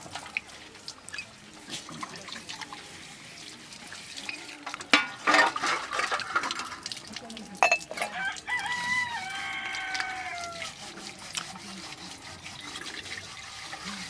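Water running from an outdoor tap while steel dishes are washed, with loud clatters of metal plates and cups about five and eight seconds in. A rooster crows once, a long call starting about eight seconds in.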